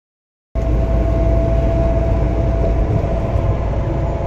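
Loud, steady low rumble of moving vehicles with a steady hum over it, cutting in abruptly about half a second in.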